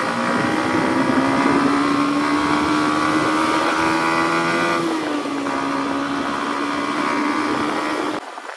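Yamaha MT-15's 155 cc single-cylinder engine pulling away under acceleration. Its note rises steadily, drops at a gear change about five seconds in, then holds steady before cutting off abruptly near the end.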